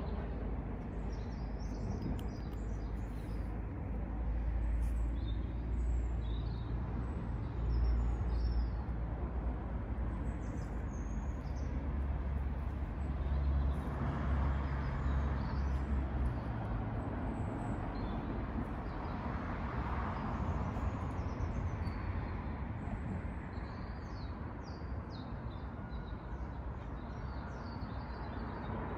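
Outdoor ambience: small birds chirping at scattered intervals over a low rumble that fades about sixteen seconds in.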